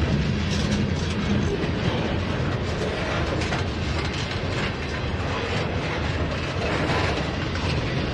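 Freight train boxcars rolling past close by: a steady rumble of steel wheels on rail, with frequent clicks and clatter throughout.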